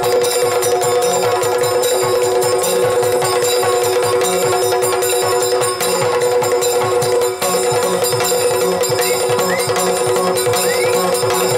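Yakshagana percussion: chende and maddale drums playing a fast, dense rhythm for the dance over a steady drone. Near the end there are a few short rising chirps.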